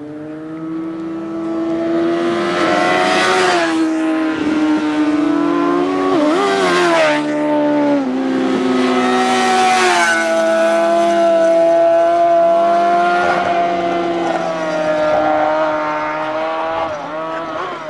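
Motorcycle engines revving hard as several riders pass one after another, with louder swells at about 3, 6 and 10 seconds in. The pitch dips and climbs again with throttle and gear changes.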